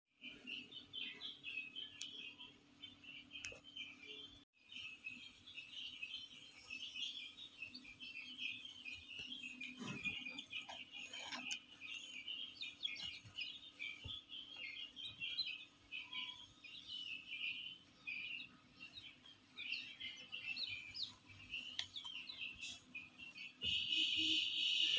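Newly hatched chicks peeping continuously, many short high cheeps overlapping and growing louder near the end, over a faint steady low hum.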